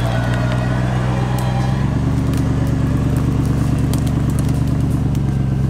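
Toyota Land Cruiser 100-series 4x4's engine running at low, steady revs while crawling over forest ground. The pitch steps up slightly about two seconds in, and there are a few faint clicks.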